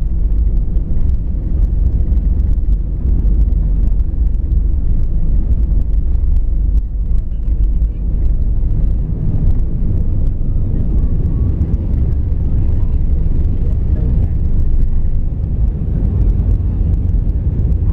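Jet airliner's engines at takeoff power heard from inside the cabin: a loud, steady deep rumble through the takeoff roll up to lift-off.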